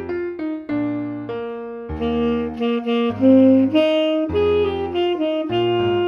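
Tenor saxophone playing a melody of held notes that change every half second to a second or so. Piano chords sound underneath.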